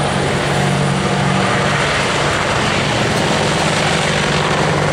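AH-64D Apache attack helicopter flying past low: a steady drone of rotor and twin turboshaft engine noise over a constant low hum.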